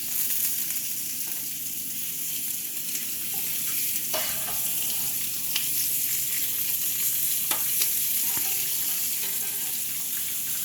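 Oiled yellow and green squash slices sizzling on a hot grill, a steady hiss, with a few short sharp clicks about four, five and a half and seven and a half seconds in.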